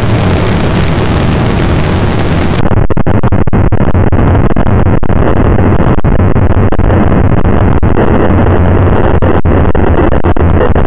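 Harsh, distorted electronic noise music: a dense, clipped wall of noise over a heavy low hum. A bright hiss on top cuts off suddenly about two and a half seconds in.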